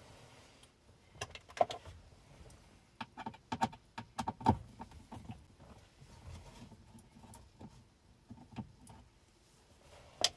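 Irregular small clicks, taps and scrapes of a Torx T20 screwdriver working the display's retaining screws loose in a car dashboard, with the metal screws being handled; one sharp click near the end.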